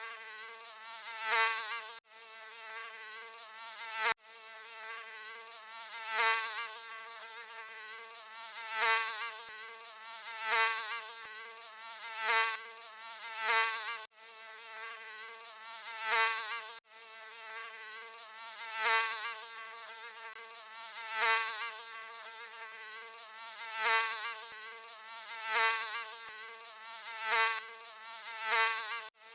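Mosquito wing buzz, a thin high whine that swells loudly and fades again every couple of seconds, as if the mosquito were flying past the ear again and again.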